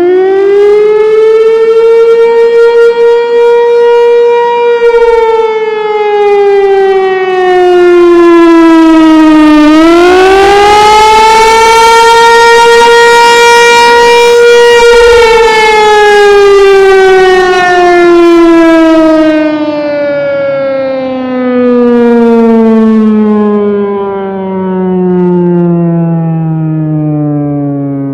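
Federal 508 electromechanical outdoor warning siren sounding a slow rising-and-falling wail, the attack signal. Its pitch climbs and holds twice, then falls steadily from about halfway as the siren winds down. The loudness swells and fades over several seconds.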